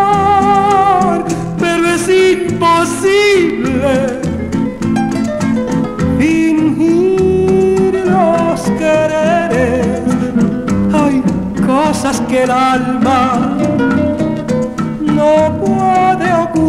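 A record playing on the Anders Nicholson 2655 turntable, recorded straight from its line output: a song with a singing voice over plucked guitar.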